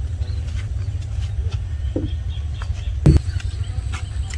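Low, fluctuating rumble of wind on the microphone, with scattered small clicks and one louder sharp knock about three seconds in.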